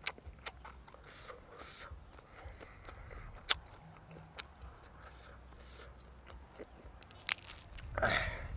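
A person chewing and biting roast duck close to the microphone, with scattered sharp mouth clicks and a louder bite near the end.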